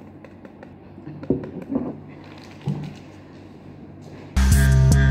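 A few soft knocks and taps from handling a tumbler and drink sachet, then about four seconds in a short, loud buzzing tone that cuts off abruptly into silence.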